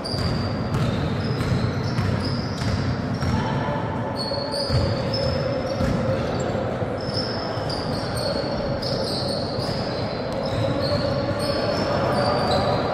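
Indoor basketball game: a ball bouncing on a hardwood court and sneakers squeaking in many short, high-pitched chirps, with players' voices echoing in a large hall.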